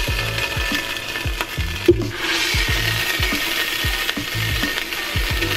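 Chicken drumsticks sizzling as they brown in oil in an enamel pot, with metal tongs scraping against the pot as the pieces are lifted out.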